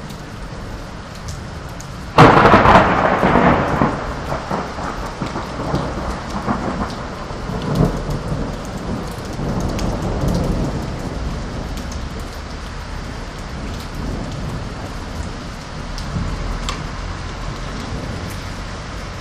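A sudden loud thunderclap about two seconds in, rumbling on and slowly fading over the next several seconds, over the steady hiss of rain.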